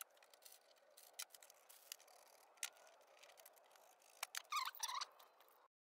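Faint clicks and clinks of machined aluminium supercharger bracket pieces being handled and fitted together on a bench. A louder run of clicks and short squeaky scrapes comes about four to five seconds in.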